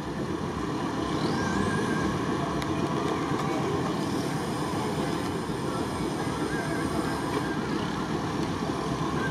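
Steady, even rumble of a stuck off-road 4x4's engine running.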